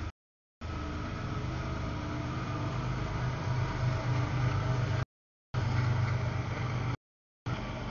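CSX freight train's diesel locomotives passing close by: a steady low engine drone over rolling rail noise. The sound cuts out completely three times for about half a second each.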